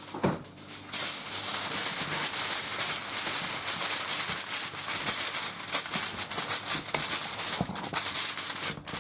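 Aluminum foil crinkling and crackling as a sheet is spread over a baking pan and crimped around its edges by hand, starting about a second in.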